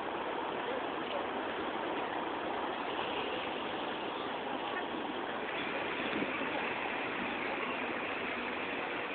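Steady city street noise: a continuous rush of traffic with no distinct events, growing a little brighter about halfway through.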